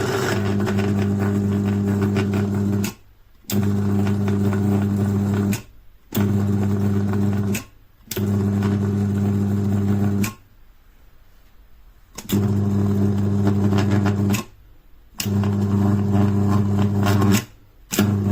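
Cuisinart electric spice grinder's motor and blades running in repeated pulses, each about two seconds long with short pauses and a longer pause midway. The motor holds a steady pitch during each pulse.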